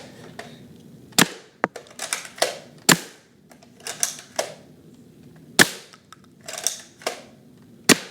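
Nerf Strongarm dart blaster being fired four times, each shot a sharp spring-powered snap, with quicker plastic clicks and clacks between the shots as it is primed again.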